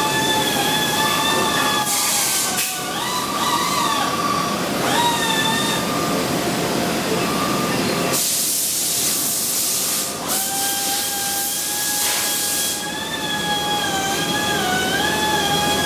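Motor whine from a 2009 Sharp vertical mill, its pitch stepping up and down several times as the speed changes. Bursts of hiss come in three times, the longest about halfway through.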